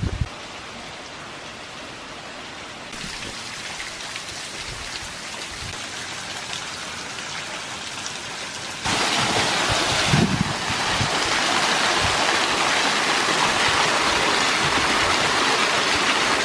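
Water falling off a layered rock bluff: a steady patter of thin streams spilling down the rock face, growing much louder about nine seconds in, where a small waterfall cascades down a ledge in a steady rush.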